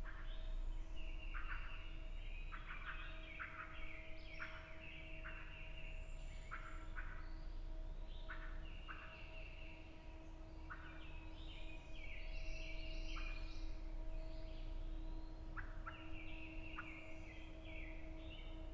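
Wild turkey gobbler gobbling repeatedly, with songbirds calling and a faint steady hum underneath.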